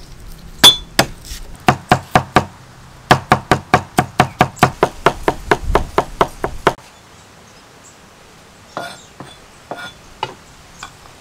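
A cleaver chopping garlic on a thick wooden chopping block: a run of loud, sharp knocks, uneven at first, then quickening to about four or five strokes a second. The chopping stops suddenly about two-thirds of the way through, leaving a few faint knocks.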